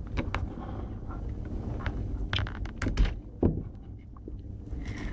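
Hand work on a coaxial cable as its outer jacket is cut around and stripped: scattered clicks and scrapes of the blade and cable, with two louder knocks about three seconds in.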